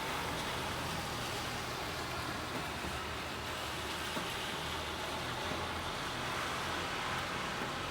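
Steady rain falling on a city street, with the hiss of a car's tyres on the wet road swelling up in the second half.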